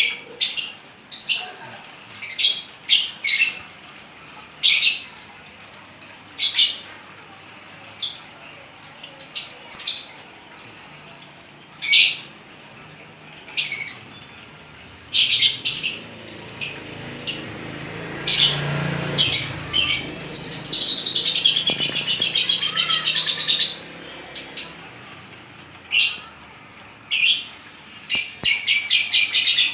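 Lovebird giving short, shrill chirps one or a few at a time, then breaking into a rapid chattering run for several seconds about twenty seconds in, with another quick run near the end.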